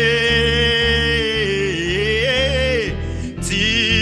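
Gospel worship music: a singer holds one long note over instrumental backing, bending it near the middle and letting it go about three quarters of the way in, while the backing plays on.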